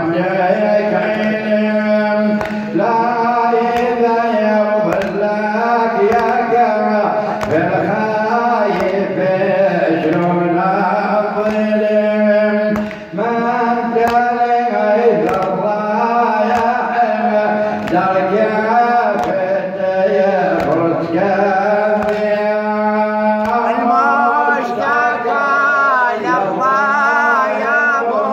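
A man chanting a Shia noha, a mourning lament in Arabic, in long melodic lines that waver and bend, with a steady low tone underneath.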